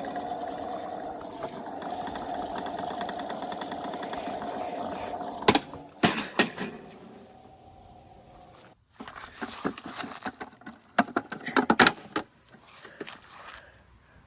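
Small electric motor of a toy washing machine running with a steady hum, stopping about five seconds in. After that come a series of irregular sharp clicks and knocks, in two clusters.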